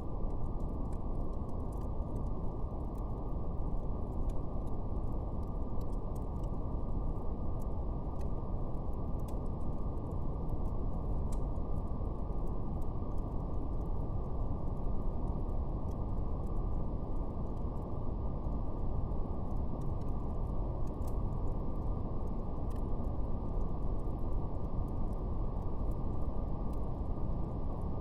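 Steady brown noise, a deep even rumble with nothing above the low-mid range, over faint scattered crackles of a fire.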